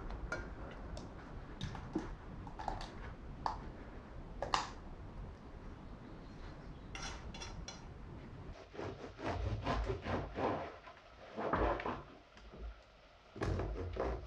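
A silicone spatula taps and scrapes against a stainless steel saucepan of thick strawberry sauce, with occasional sharp knocks. About halfway through the sauce is scraped out of the pan into a glass bowl. Near the end a bread knife saws through a crusty baguette on a wooden board.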